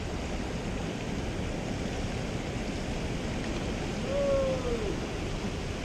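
Rushing stream water, a steady wash of noise. About four seconds in there is a short, faint falling tone.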